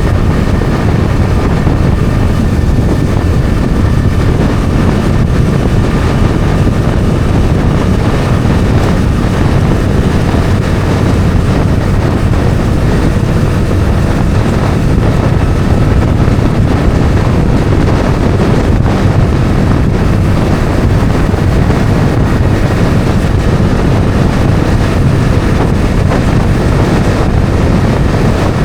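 Bajaj Dominar 400's single-cylinder engine running at a steady cruise, with wind noise on the helmet microphone.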